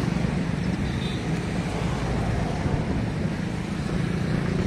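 Steady low rumble with hiss: outdoor background noise.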